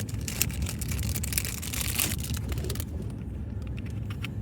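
Plastic puzzle cube being handled close to the microphone: irregular clicking and crackling for the first few seconds, then quieter, over a steady low rumble of handling noise.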